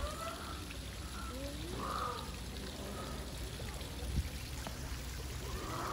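Steady rushing of running water, with faint voices rising and falling over it and a single soft knock about four seconds in.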